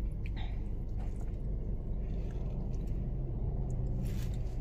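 Steady low hum of a car's idling engine, heard from inside the cabin. Brief soft rustles come a moment in and again near the end, as the pizza sub is pulled apart over its foil-lined box.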